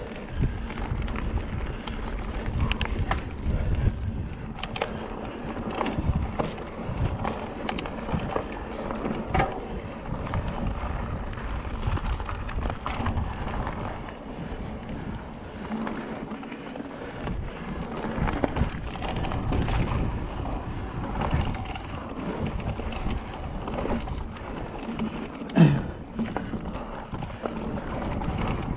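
Mountain bike being ridden over rough trail: a steady rumble of tyres and wind on the microphone, with frequent clicks and knocks as the bike rattles over rocks, and one brief louder sound near the end.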